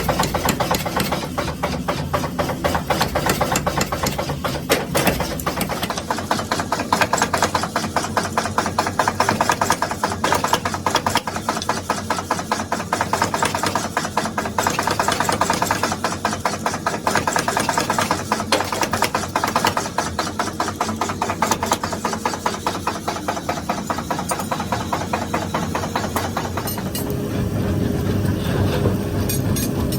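Mechanical power hammer pounding steel stock in rapid, evenly repeated blows while forging tongs. About four seconds before the end the blows thin out, leaving the machine's steady running hum.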